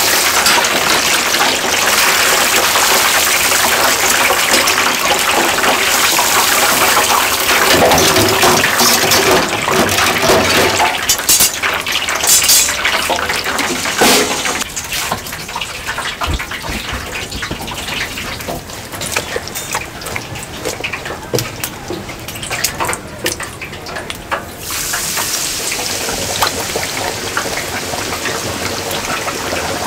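Water running and splashing from a tap, shut off about fourteen seconds in. Scattered clatter and knocks follow, then the water comes on again suddenly near the end.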